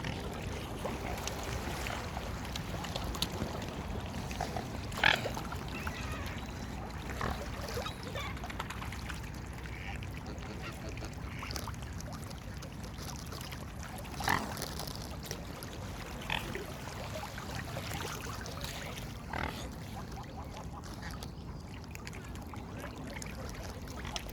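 Waterfowl calling now and then: short, separate honks and quacks over steady background noise, with two louder calls about five seconds and fourteen seconds in.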